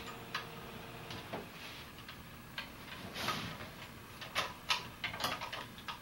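Light clicks and knocks of metal bike parts being handled: the detached handlebars and brake cables of a folding bike being moved and set down against the frame, with a brief rustle about three seconds in and a quick run of clicks in the second half.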